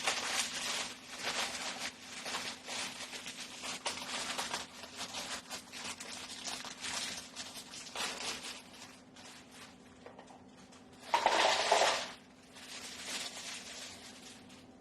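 Crinkly plastic packaging of instant ramen noodles being handled and torn open, a run of rustling and crackling, with a louder crackling burst about eleven seconds in.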